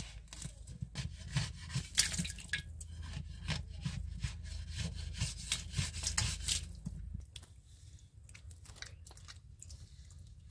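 A metal blade digging and scraping into packed clay soil, clods crumbling with crackles and small clicks, for about seven seconds. Then quieter, a hand rubbing and smoothing wet mud.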